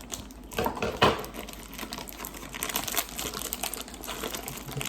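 Plastic shipping bag, wrapped in a lot of tape, crinkling and crackling as it is pulled and worked at by hand in an effort to get it open, with a sharp snap about a second in.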